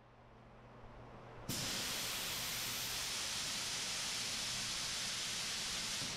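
Compressed air hissing loudly and steadily; it starts suddenly about a second and a half in.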